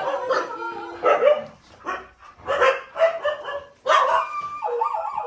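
A dog barking repeatedly in short barks, about one every half second to a second.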